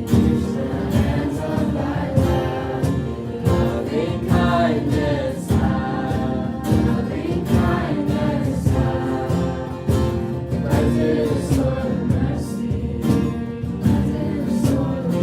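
Music: a song with singing voices over instruments and a steady beat.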